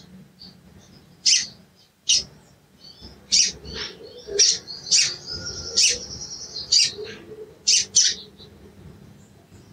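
Male olive-backed sunbird calling: a string of sharp, high chirps about a second apart, with a short high trill held for a couple of seconds around the middle.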